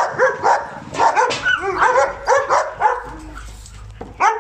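Dog barking in quick, repeated barks, about three a second, which pause briefly about three seconds in and start again near the end.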